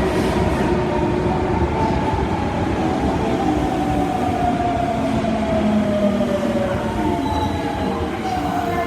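Osaka Metro 22 series subway train running, with a steady rumble and a motor whine that falls slowly in pitch as the train slows.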